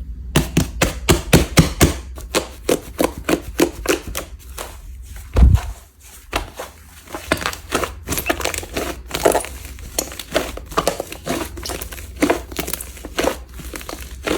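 Slime squeezed and pressed by hand, giving quick runs of crackling pops and clicks. There is one heavier thump about five seconds in.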